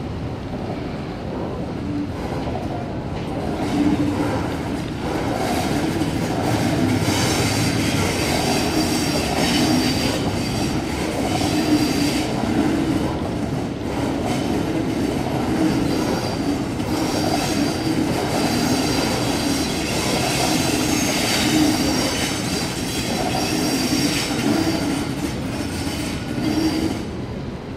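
Double-deck electric suburban trains moving slowly through the station tracks: steady rolling and running noise, with steel wheels squealing in a high pitch that comes and goes.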